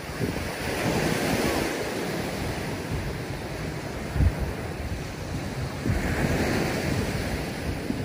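Small surf washing up on the beach, swelling about a second in and again near six seconds, with wind gusting across the microphone.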